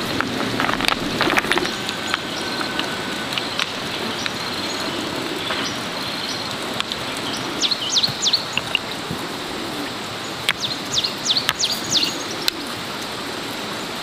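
Stones being set by hand into loose soil: a steady scraping hiss of stone and earth with a few sharp knocks of stone on stone near the start. Birds chirp in quick bursts twice in the second half.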